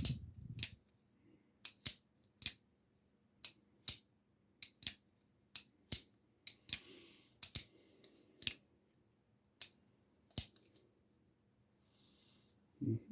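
Sharp metallic clicks, singly and in close pairs at irregular spacing, from the action of a Pietta 1858 Remington New Model Army cap-and-ball revolver being worked by hand: the hammer being cocked and let down, with the cylinder turning and locking.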